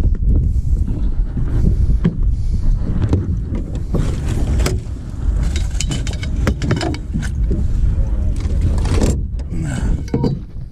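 Clatter and knocks of gear being moved in a boat's storage compartment as a landing net is pulled out, most of it in the middle of the stretch, over a steady low rumble.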